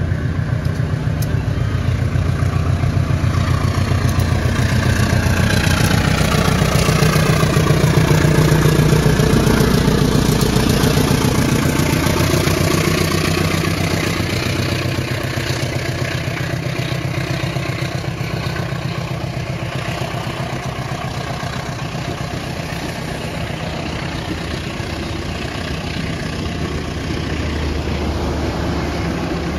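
Large bus diesel engine running, getting louder to a peak about eight seconds in and then slowly fading.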